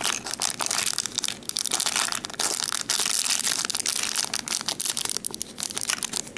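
Small clear plastic bead bag crinkling as fingers squeeze and shake it to empty the beads out, a dense crackly rustle that thins out near the end.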